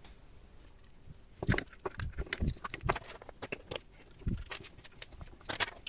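Irregular clicks and small metallic clinks as a disassembled metal encoder housing is handled and worked with a small screwdriver, with a few dull knocks among them. They begin about a second and a half in.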